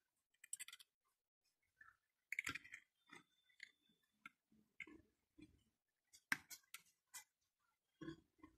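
Faint, scattered clicks and taps as the rubber EHT anode cap and a metal tool are worked onto the anode button of a CRT picture tube, the cap's clip being pressed into place.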